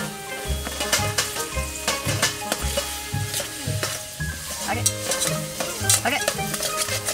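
Sukiyaki ingredients sizzling in a pan, with sharp clicks of utensils stirring and turning the food. Background music with a repeating bass line plays under it.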